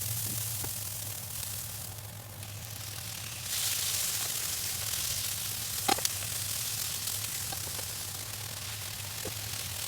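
Food sizzling in a frying pan: a steady hiss that grows louder about three and a half seconds in, with a few light clicks and a low steady hum underneath.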